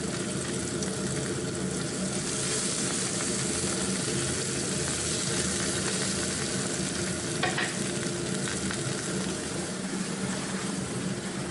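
Wild leeks sizzling in a frying pan of hot oil with bacon and chili peppers, a steady sizzle as they are stirred with a wooden spatula, with one brief knock about two-thirds of the way in.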